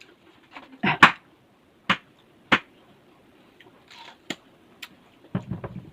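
Crisp, separate crunches and clicks of someone biting and chewing crunchy wax apple (makopa) close to the mic, the loudest about a second in.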